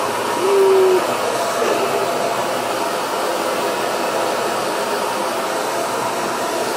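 Handheld hair dryer blowing steadily. About half a second in, a toddler makes one short, held vocal sound over it.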